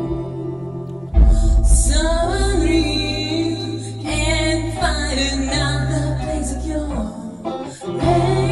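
Music: a female voice singing a song over an instrumental backing, the vocal line coming in about a second in.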